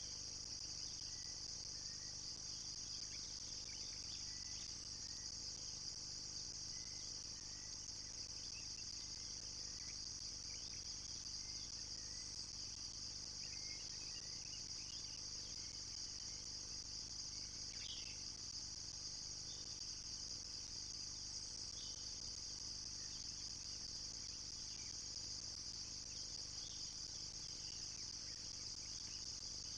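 Steady, high-pitched chorus of insects, with scattered faint short bird chirps.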